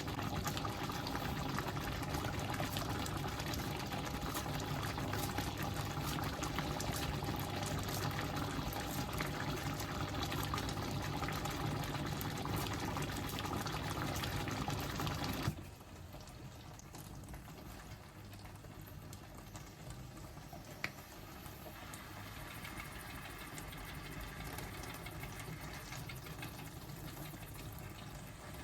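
Steady watery bubbling and hiss from a pan on the stove, with a low hum under it. About halfway through it drops suddenly to a quieter hiss, and a single sharp click comes a few seconds later.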